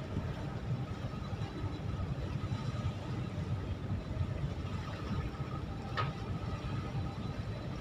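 Steady low rumble of a tugboat's diesel engines during ship-berthing assist work, with one short click about six seconds in.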